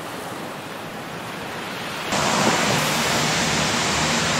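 Steady rushing water noise like surf. It grows slowly louder, then steps up sharply about two seconds in.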